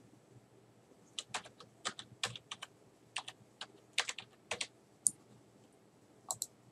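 Computer keyboard keystrokes as a password is typed: an uneven run of quick, short clicks that starts about a second in and lasts about three and a half seconds, followed by a couple of separate clicks near the end.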